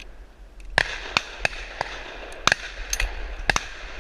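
Shotguns of several hunters firing at a flying bird in a rapid, uneven volley, about nine shots in three seconds, starting just under a second in.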